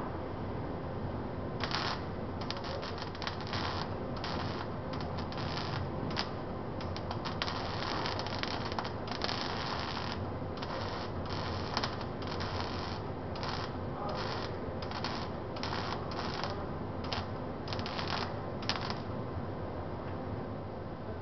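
Electric arc welding on a car's underbody: the arc crackles and spits in a run of short bursts with brief pauses between them.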